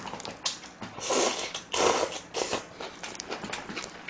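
Close-miked slurping of saucy spaghetti noodles, two long slurps about a second apart, followed by wet chewing with many small mouth clicks.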